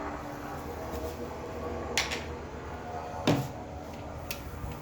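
Two sharp knocks about a second apart, the second louder with a low thud, like a door being handled and shut, over a steady low hum.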